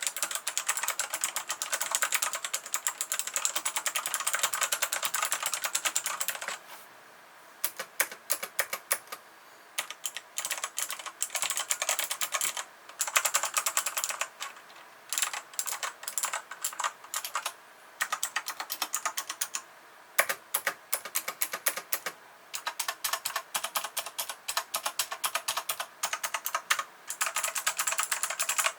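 Micronics X40 gaming keyboard being typed on fast: rapid, continuous key clicks in runs of several seconds, broken by short pauses.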